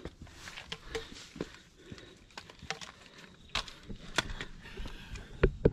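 Footsteps of a hiker climbing a steep dirt trail over tree roots: irregular scuffs, crunches and clicks of shoes on soil, roots and stones, with a couple of heavier thumps near the end.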